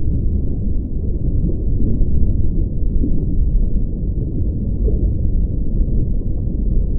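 Steady deep rumble with nothing above a low pitch and no distinct events.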